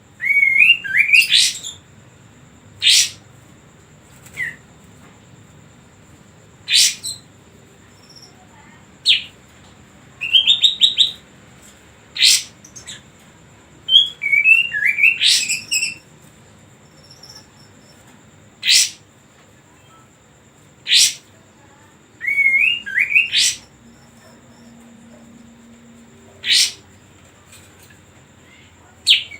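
Kapas tembak songbird singing. Sharp, loud, steeply falling call notes come every couple of seconds, between short rippling warbled phrases.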